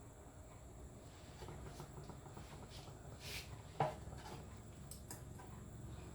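A few faint clicks and one sharper knock about four seconds in, with a brief soft hiss just before the knock.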